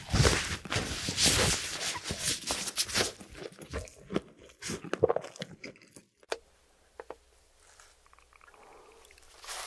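Close-miked crunching bites into crispy fried chicken, with chewing: dense and loud for the first three seconds, thinning to scattered crunches, then dying away to near quiet about six seconds in.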